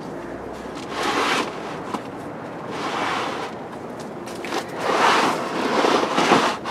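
Rustling and scraping of plastic in three swells, the last the longest and loudest near the end, from seedling trays and the plastic cover of a small shelf greenhouse being handled.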